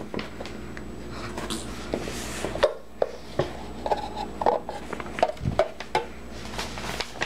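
Hands handling small plastic pony toys and a small lidded box: scattered clicks, taps and rustles as the box is opened and closed and toys are set down.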